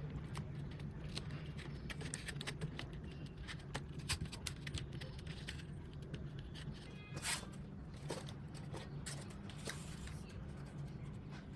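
Scattered light clicks and scrapes from hands working with materials, over a steady low hum.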